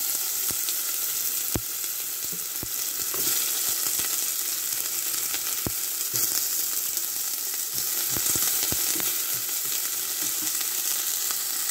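Chopped onions sizzling as they fry in hot oil in a pan, a steady hiss with scattered light knocks of a utensil stirring against the pan.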